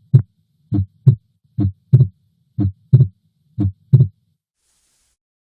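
Stethoscope recording of a normal heart: paired first and second heart sounds (S1 then S2) at about one beat a second over a faint low hum. It is played to demonstrate physiologic splitting of the second heart sound on inspiration. It stops a little past four seconds in.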